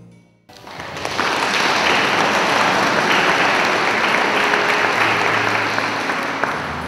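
Audience applauding, starting after a brief hush about half a second in and dying away near the end.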